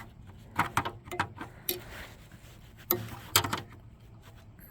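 Scattered light clicks and taps of hand work on small parts. Two sharper knocks come about three seconds in.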